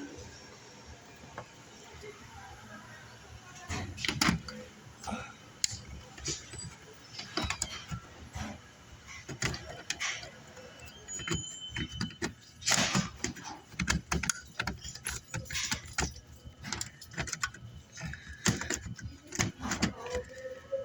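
Handling noise: a string of irregular clicks, knocks and rustles of objects being moved and worked by hand, thickening from about four seconds in.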